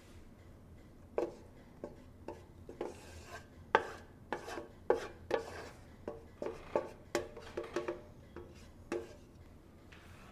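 A utensil scraping and knocking against a frying pan and bowl as wilted, cooked vegetables are moved into the bowl. Irregular sharp taps, some with a short metallic ring, mixed with brief scrapes.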